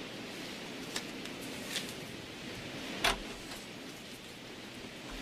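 Steady low hiss with a couple of light clicks, then a door's latch clicking with a soft thud as the door is pulled open about three seconds in.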